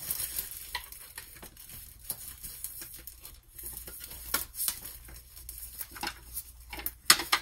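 Clear plastic packaging rustling and crinkling with scattered light clicks and knocks as a wooden laptop stand is handled and unwrapped. A sharper click comes near the end.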